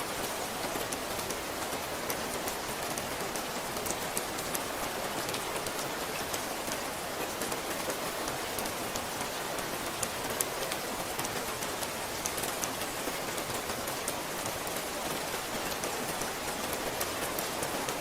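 Steady rain falling, a dense even patter with many small drop ticks and no thunder.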